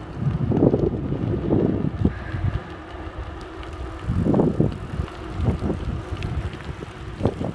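Wind buffeting the microphone of a camera carried on a moving bicycle: a steady low rumble that swells in gusts about a second in, around four seconds in and briefly near the end.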